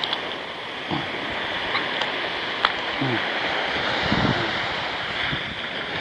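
Steady wash of surf on the beach with wind on the microphone, broken by a few small clicks and a couple of short low sounds.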